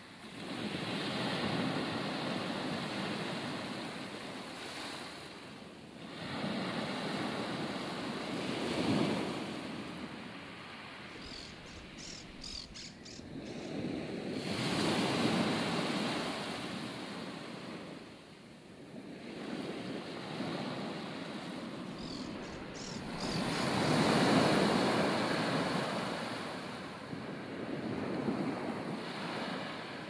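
Ocean waves breaking and washing up the shore, swelling and fading every several seconds, with wind on the microphone.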